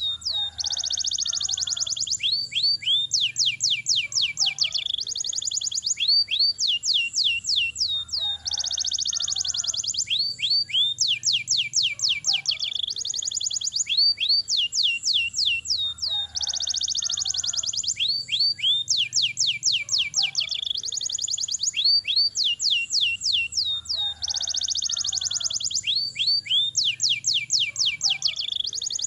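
Domestic canary singing in long, fast rolls of rapid high trills and sweeping notes. The same sequence of phrases comes round about every eight seconds.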